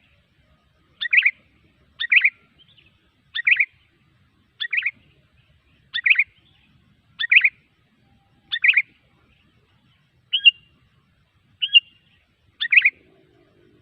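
Sooty-headed bulbul (kutilang) calls from a bird-lure recording: a short chattering call repeated about once every second and a quarter. Near the end, two shorter, thinner notes break the pattern before one more full call.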